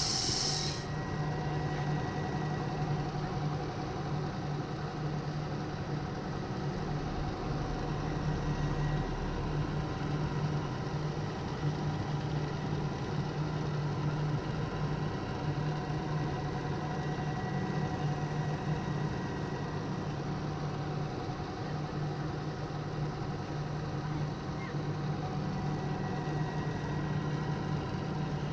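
Amano CW-400T battery-powered carpet vacuum running, its suction motor and rotating brush making a steady low hum with a faint thin whine. A high hiss cuts off about a second in.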